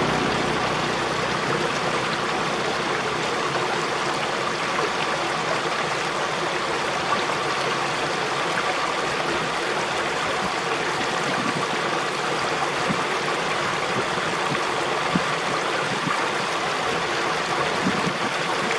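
Steady rush of running water, like a small stream or irrigation channel flowing, with an even, unchanging level throughout.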